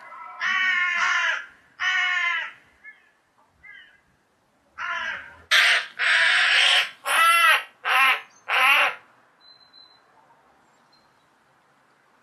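Hooded crow giving harsh, agitated caws while fighting a hawk: two drawn-out caws in the first couple of seconds, then a run of about six loud harsh caws from about five to nine seconds in.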